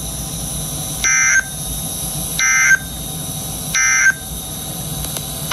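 Emergency Alert System end-of-message data tones over NOAA Weather Radio: three short bursts of digital warble, about a second apart, over the station's steady background hiss. They signal the end of the broadcast weather message.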